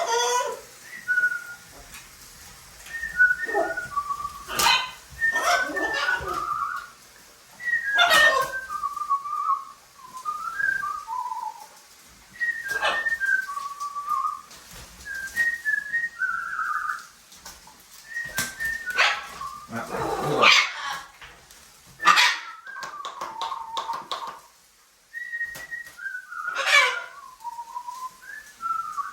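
Parrots whistling in short chirpy phrases, with loud, harsh squawks breaking in every few seconds.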